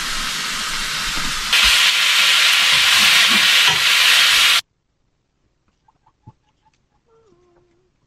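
Steak sizzling in a frying pan, a steady hiss that grows louder about one and a half seconds in, then cuts off suddenly about halfway through. Near quiet follows, with a few faint ticks and a short faint call.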